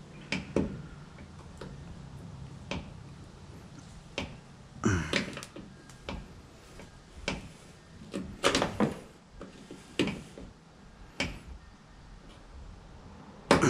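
Irregular clicks and knocks of a clip popper tool and hands working plastic retaining clips loose around a pickup truck's tail light, with a louder cluster of knocks past the middle.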